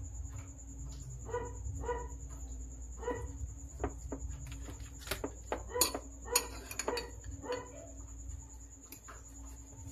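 A dog barking in short, repeated yaps in the background. About five to seven seconds in, a few sharp clinks of a metal fork against a ceramic bowl as salad is tossed.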